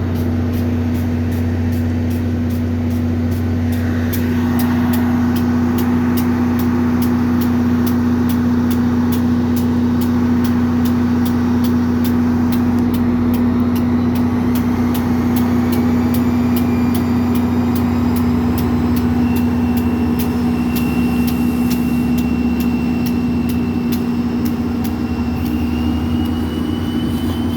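NJ Transit PL42AC diesel locomotive's engine running steadily with a loud, even drone. A faint high whine slowly rises in pitch over the second half.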